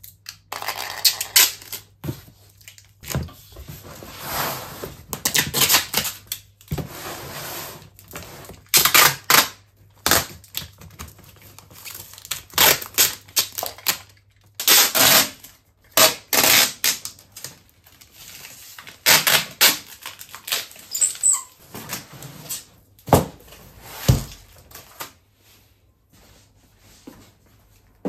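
Clear packing tape ripped off its roll and pressed onto a cardboard box, in a long series of short rasping tears, each under a second, quieter and sparser near the end.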